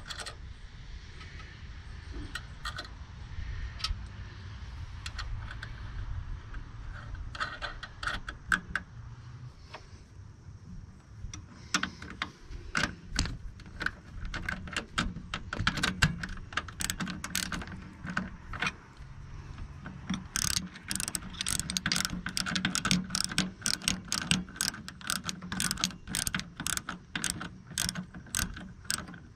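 Ratcheting wrench clicking in quick runs as a new nut is run down on the bolt of an air-conditioning line brace. The clicks are sparse at first and come thick and fast over the last third.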